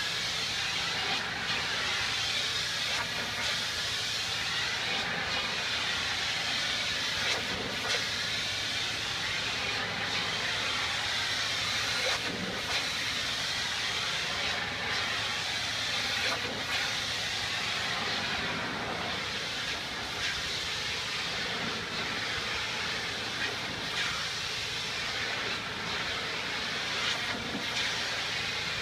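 Pressure washer jet spraying a fabric awning: a steady hiss of high-pressure water spray, with a low steady hum underneath.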